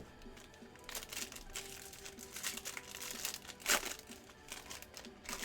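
Crinkling and rustling of a foil trading-card pack wrapper being handled and opened, in a run of short, dense rustles starting about a second in, the loudest a little before the end.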